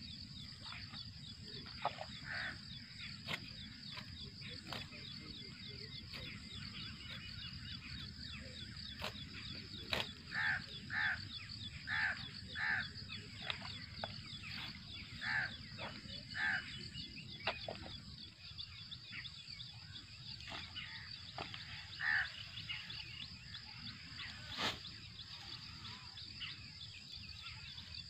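Outdoor rural ambience: a steady high insect chirring, with a bird giving a run of short harsh calls, about one a second, through the middle. A few sharp snaps and clicks are scattered through it.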